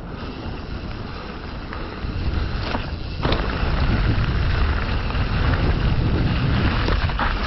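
Wind buffeting the microphone over the rolling and rattling of a mountain bike on a dirt trail. It gets louder about two seconds in and again a second later as the bike gathers speed, with a couple of sharp knocks from the bike around that point.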